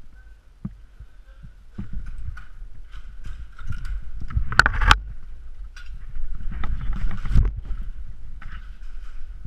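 Footsteps and gear rustling as an airsoft player moves, uneven thumps growing louder about two seconds in, with two sharp cracks a little before the midpoint.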